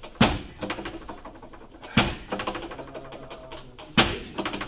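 Straight punches (tsuki) landing on a padded wooden makiwara striking board: three hard thuds about two seconds apart, each followed by a brief ring of the board.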